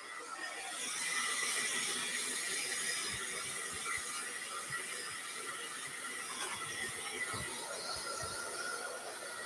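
A small powered tool running steadily with a rasping whir as it is worked back and forth over a raccoon pelt to soften the fur, with a few soft knocks from handling. The sound picks up about a second in.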